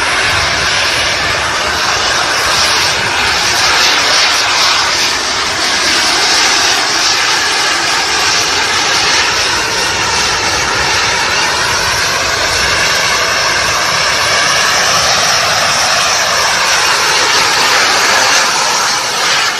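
Jet-powered hoverboard's turbine engines running steadily at full thrust, a loud continuous jet noise with a slight shift in pitch in the second half as the rider flies low over the water.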